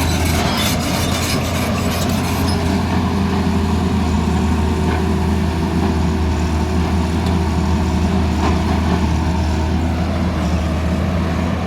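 Tata Hitachi excavator's diesel engine running steadily with a deep hum, with a rapid metallic clatter over the first two or three seconds.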